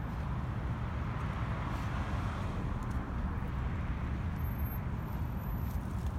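Steady rumble of city road traffic.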